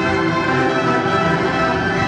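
Classical orchestral music playing held, sustained chords.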